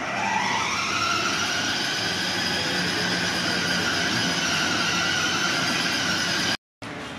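Battery-powered ride-on toy Jeep's electric drive motors whining as it pulls away. The pitch rises for about a second, then holds steady while it drives along, and stops suddenly near the end.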